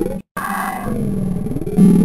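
A cartoon voice clip heavily pitch-shifted and distorted into a low, droning, music-like growl, its pitch gliding up and down. The sound cuts out briefly about a quarter of a second in, and it grows louder near the end.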